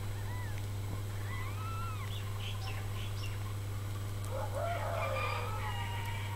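Newborn kittens mewing in thin, short arched squeaks, several overlapping about four and a half seconds in, over a steady low hum.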